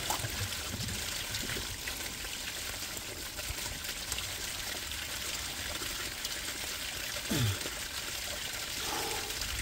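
Mains water running steadily out of the open end of a live blue plastic water pipe into a flooded trench, the pipe still under pressure while a joint is being fitted.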